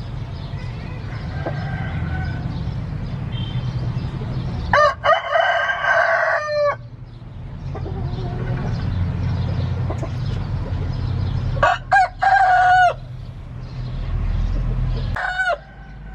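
Roosters crowing: two full crows, about five seconds in and about twelve seconds in, and a shorter crow near the end, over a steady low rumble.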